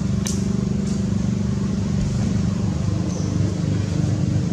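An engine running steadily with a low, even drone, with two short sharp clicks near the start.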